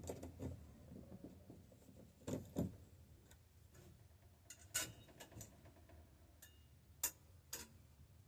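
A few light clicks and knocks, some with a metallic ring, from a bicycle kickstand and frame being handled while the stand is tried on, spread over several seconds above a faint low hum.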